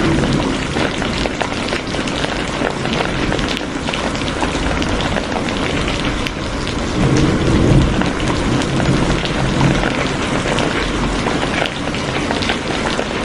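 Steady heavy rain falling and spattering on surfaces, with a low rumble that swells about halfway through.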